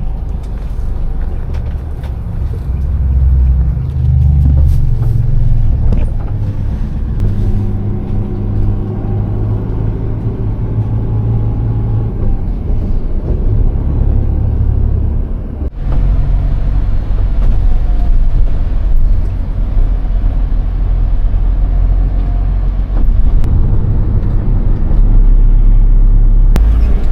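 Low engine and road rumble of a moving road vehicle, with a short dip about sixteen seconds in.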